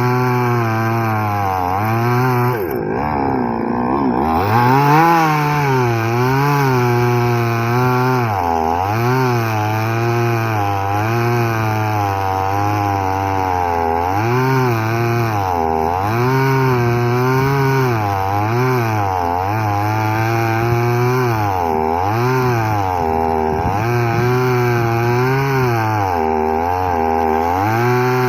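Petrol chainsaw of the '6000' model cutting into a tree, its engine speed repeatedly dipping and climbing back every second or two as the chain bites into the wood.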